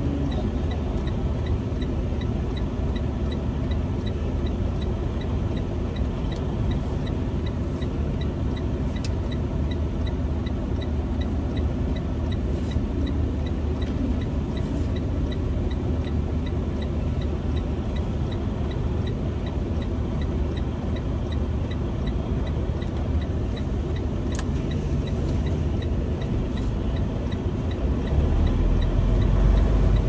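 Diesel engine of a Freightliner Cascadia semi-truck running, heard from inside the cab as a steady low rumble, with faint regular ticking over it. The engine gets louder near the end.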